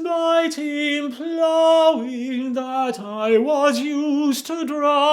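A man singing a slow traditional folk melody unaccompanied, with vibrato on the held notes.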